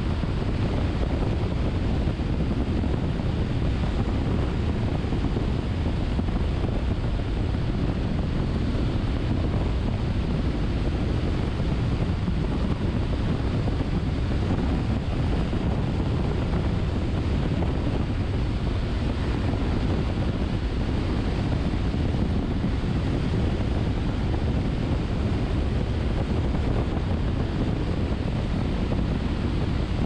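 Steady road and wind noise of a car cruising at highway speed, an even low rush with no changes.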